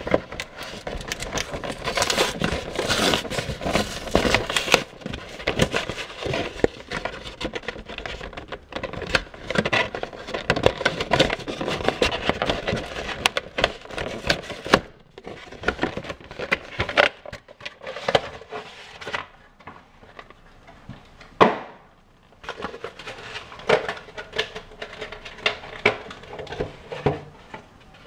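Packaging of a trading-card collection box being handled and opened: a dense run of crinkling, scraping and clicking that thins out after about halfway, with one sharper knock about two-thirds through.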